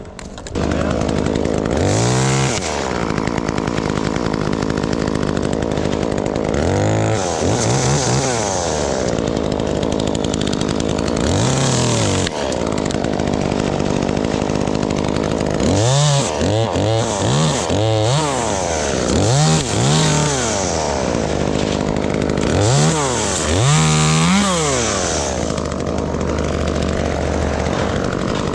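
Two-stroke gas chainsaw running and revved up and back down about a dozen times, the revs coming in quick succession in the second half.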